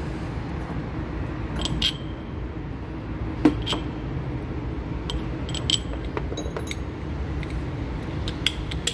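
Scattered metallic clinks and clicks of hand tools and engine parts being handled in a car's engine bay during spark-plug removal, over a steady low hum. The sharpest clink comes about three and a half seconds in.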